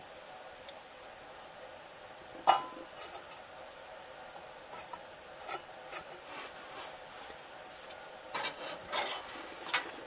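Sporadic sharp clicks, knocks and short scrapes as a wood fire is tended in a metal drum stove. The loudest is a single sharp click about two and a half seconds in, with a cluster of them near the end.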